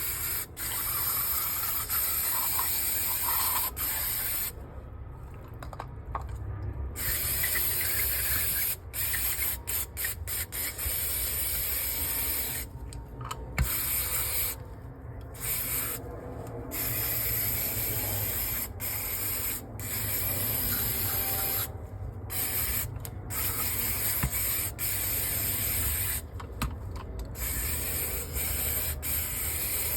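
Aerosol brake cleaner spraying in long hissing bursts with several brief pauses, flushing grime out of a carburettor.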